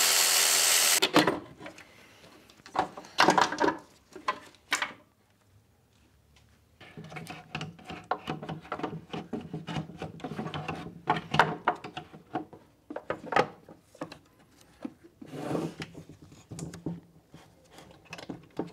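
A cordless ratchet runs, spinning out a fuel rail bolt, and stops about a second in. Then come scattered knocks and clatter, followed by a long run of small knocks and rubbing as a plastic intake manifold and a metal fuel rail are handled and pressed together on a wooden workbench.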